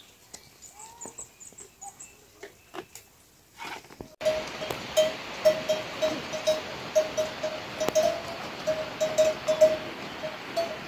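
Faint, quiet sounds while a water buffalo is hand-milked. About four seconds in, a louder stretch begins as a herd of water buffaloes walks over a stony track: a livestock bell clanks again and again at an uneven pace, with sharp clatters over a rough noise.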